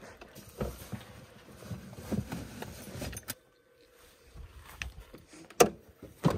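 Rustling and handling noises as a cloth drawstring bag is taken out of a Land Rover Defender's rear side door, then the door is shut with a sharp thud about five and a half seconds in, followed by a second knock.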